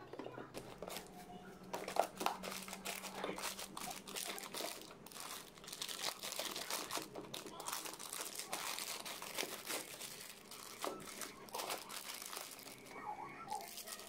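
Plastic food packaging crinkling and rustling as bagged frozen food is handled and packed into a wire basket, with scattered light taps.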